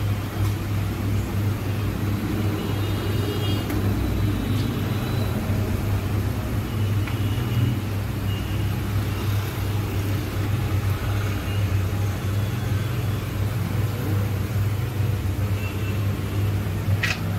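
Steady low rumble, with one short sharp click near the end.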